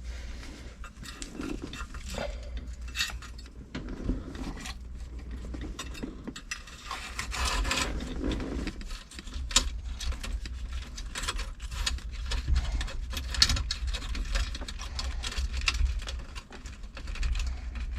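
Irregular clicking and rattling of small metal parts and wiring as a new turn signal switch is worked into a car's steering column, over a low steady hum.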